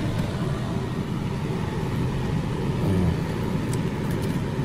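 Pot of soup boiling on an induction cooktop, a steady low rumbling bubble, with a few light clinks of a metal ladle against the pot near the end.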